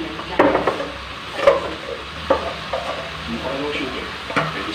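Tilapia pieces sizzling in a metal wok, a steady hiss broken by a few sharp pops.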